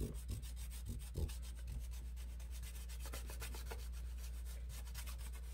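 A thick stick of sidewalk chalk scraping back and forth over black paper in quick, even strokes as it shades in a large area.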